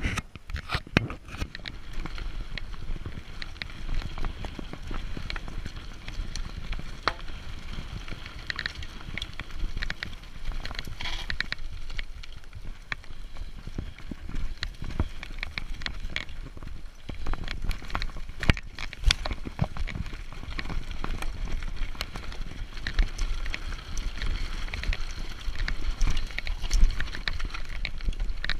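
Mountain bike ridden over a dirt forest singletrack: tyres crunching on the trail and the bike rattling and clicking irregularly over bumps, with a steady low rumble of wind on the microphone.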